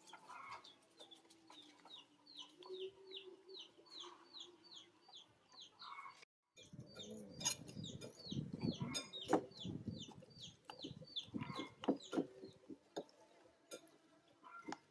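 Chickens: short falling peeps repeating about three to four times a second, with a low clucking in the first few seconds. After a cut about six seconds in, the peeping goes on over a run of knocks and clatter.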